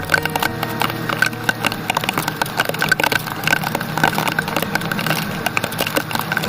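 Heavy rain in a storm, drops pattering densely and irregularly onto a hard surface, with a low steady hum underneath.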